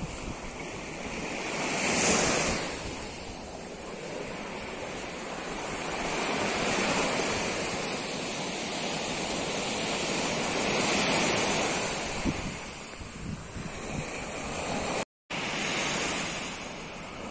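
Sea waves breaking and washing up a sand beach, the surf swelling and falling back every few seconds, with wind buffeting the microphone. The sound drops out for a moment near the end.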